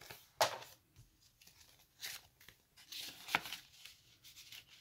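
Paper banknotes and a paper cash envelope rustling and crinkling in several short bursts as the bills are handled and slid into the envelope.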